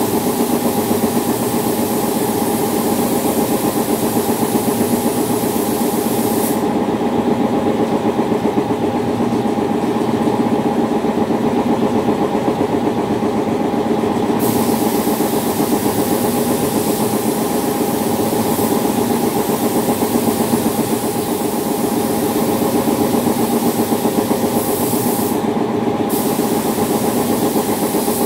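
Hiss of a SATA 5000 RP spray gun laying down Poly-Tone paint, which stops about six seconds in when the trigger is released, resumes around fourteen seconds, and cuts out briefly once more near the end. Under it runs a loud, steady machine hum.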